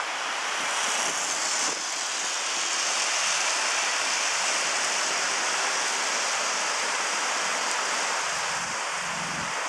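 Rushing water of a shallow, rocky river running over boulders: a steady hiss.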